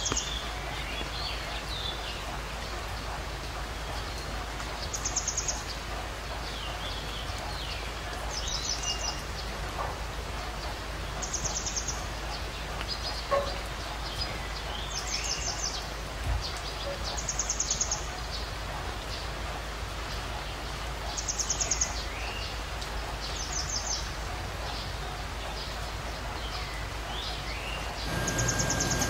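Birds calling over a steady outdoor hiss: short, high, rapid trills repeat every two to four seconds, with thinner falling chirps between them.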